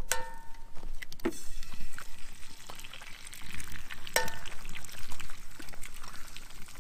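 Eggs tapped on the rim of a cast iron skillet and cracked into hot grease. There are two sharp taps that make the pan ring briefly, one at the start and one about four seconds in, over the steady sizzle of frying.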